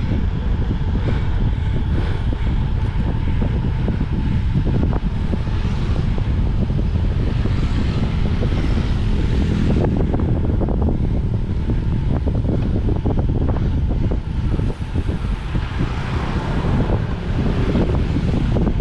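Wind buffeting the microphone of a camera carried on a moving road bike: a steady, loud low rumble.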